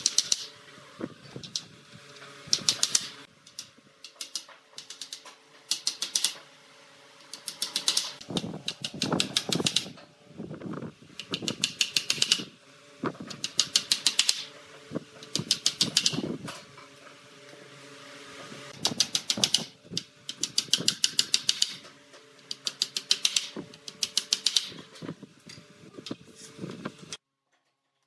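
Hand tool worked rapidly over wooden pallet slats in repeated bursts of about a second of fast clicking strokes, with short pauses between; the sound cuts off suddenly near the end.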